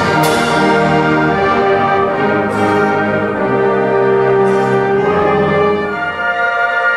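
Orchestral music with brass, playing loud held chords that shift to a new chord about five seconds in.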